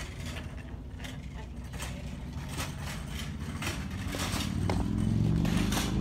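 Footsteps in sandals scuffing on a concrete sidewalk, a short click or scrape about every half second. A low vehicle rumble grows louder from about four seconds in.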